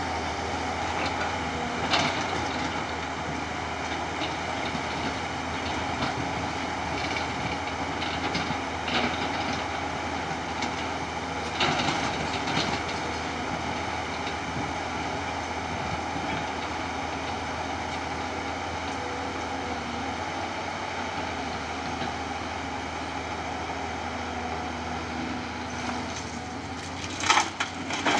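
Diesel engine and hydraulics of a large tracked excavator running steadily as it works a quarry rock pile, with occasional clanks and rattles of rock and steel, the loudest just before the end.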